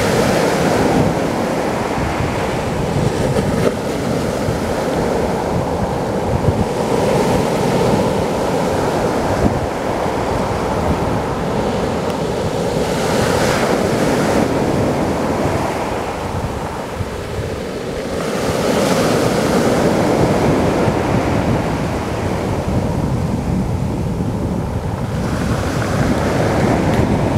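Sea waves breaking on a pebble beach and washing up the shingle, a steady rush of surf that swells with each breaker roughly every six seconds. Wind buffets the microphone underneath.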